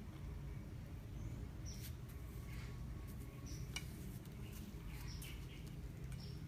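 Small birds chirping in short, high calls every second or so, with a few light clicks among them.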